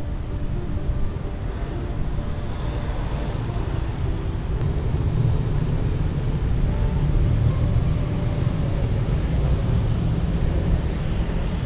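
Steady low rumble of street traffic, growing a little louder about halfway through.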